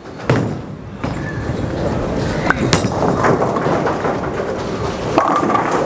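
Urethane bowling ball (900 Global Zen U) meeting the lane with a thud, then rolling down the wooden lane with a steady rumble. About five seconds in it crashes into the pins.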